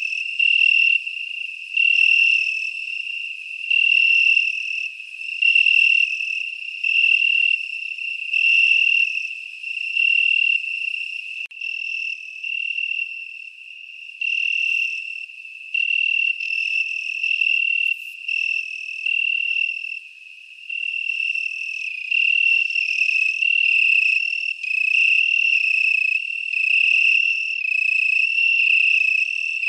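Chirping insect: a high, steady trill repeated in pulses about once a second, the pulses coming closer together in the later part.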